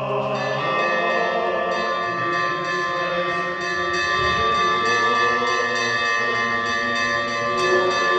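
Church bells ringing, many overlapping tones sounding together with repeated fresh strikes. A chanting choir stops just as the bells begin.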